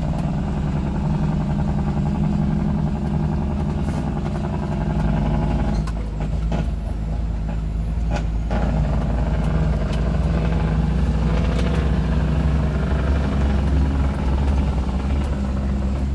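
Vehicle engine running under way, heard from inside the cab, with many short rattles and knocks from driving over a rough gravel road. The engine note drops back from about six seconds in and picks up again a couple of seconds later.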